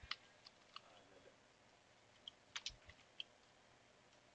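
Computer keyboard keys being typed: about ten faint, irregularly spaced clicks, with a few pauses between keystrokes.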